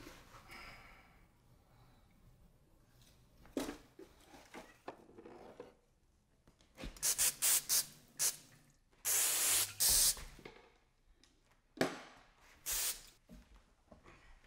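Aerosol spray can hissing in bursts: a quick run of short sprays, then one longer spray of about a second, then a short final one. Two sharp knocks come before the first sprays and just before the last.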